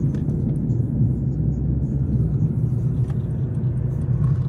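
Steady low rumble of engine and road noise heard inside the cabin of a moving car.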